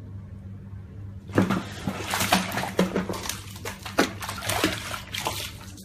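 A cat splashing and thrashing in a bathtub of foamy bath water: a run of splashes that starts suddenly about a second and a half in.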